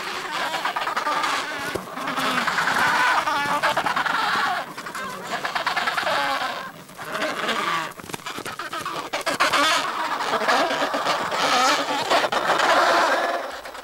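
Adélie penguin colony calling: many harsh, overlapping squawks and brays from the nesting birds, almost without pause, easing briefly twice.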